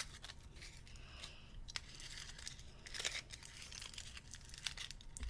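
Faint crinkling and tearing of a candy carrot's foil wrapper being picked open by hand, in short scattered rustles.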